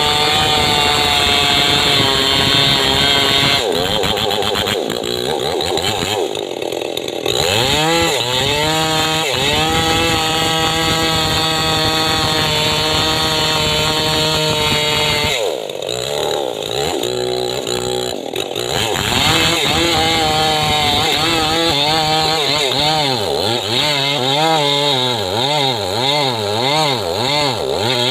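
Two-stroke chainsaw cutting trembesi (rain tree) wood, its engine note sagging under load and rising again. It eases off twice, and near the end it is revved up and down rapidly.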